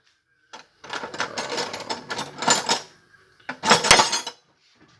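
Metal hand tools and sockets clinking and clattering as they are rummaged through, in two bouts, the second shorter and louder about three and a half seconds in.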